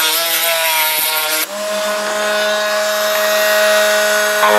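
Dremel rotary tool running with a high whine. Its pitch wavers under load for about the first second and a half, then changes abruptly to a steadier tone.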